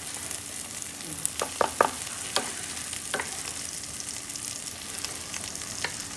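Onion-tomato masala sizzling steadily in a hot kadhai, with a few sharp clicks and knocks against the pan, bunched about one and a half to two and a half seconds in and once or twice later.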